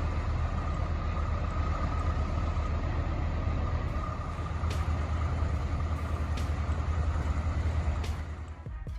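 Heavy truck engine running steadily with a deep rumble, fading near the end.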